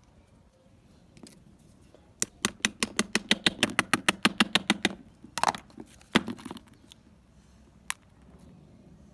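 A rapid run of sharp clicks, about nine a second for nearly three seconds, followed by a short rasping burst, a single loud knock and one more click.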